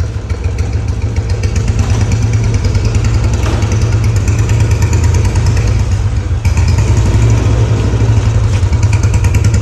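Royal Enfield Bullet single-cylinder motorcycle engine running with a Mahindra tractor silencer fitted in place of its own exhaust, giving a loud, steady, deep thumping exhaust note. The note grows a little louder over the first two seconds, then holds.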